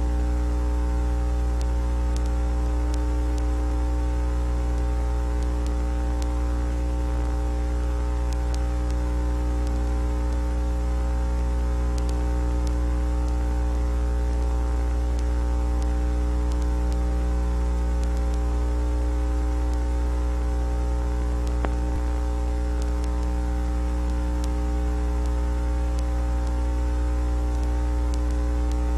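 Steady low electrical hum with a faint hiss of static, unchanging throughout, with no other sound.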